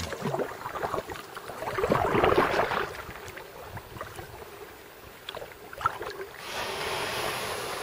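Kayak paddle strokes in calm river water: water swishing and dripping off the blade, with one louder swell about two seconds in and a steadier hiss near the end.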